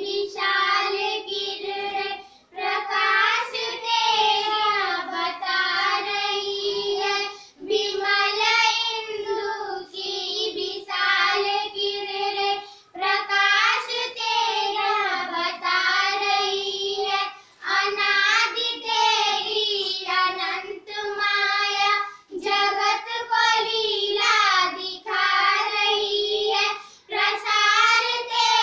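Three young girls singing a Hindi prayer song together in unison, unaccompanied, in sung phrases of a few seconds broken by short pauses for breath.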